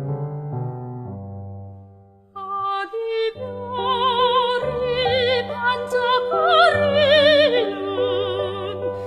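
Korean art song for soprano and piano: a piano phrase dies away to a brief hush, then the soprano enters about two and a half seconds in, singing a high, sustained line with wide vibrato over the piano accompaniment.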